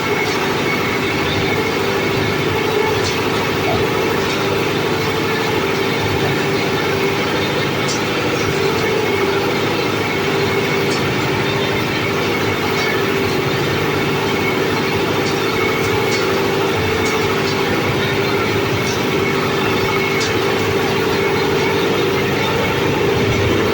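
Four-blade areca nut splitting machine running steadily with a constant mechanical hum and scattered sharp clicks.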